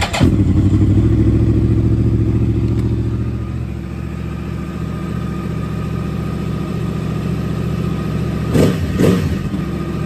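Yamaha R1 inline-four motorcycle engine catching after its starter is fed directly by bridging the starter solenoid's terminals, then running steadily at idle. It is a little louder for the first few seconds, and there are two short louder bursts near the end. That it cranks and starts this way shows the starter motor itself is good.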